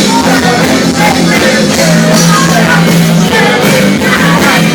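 Loud rock music with a singing voice over a steady bass line.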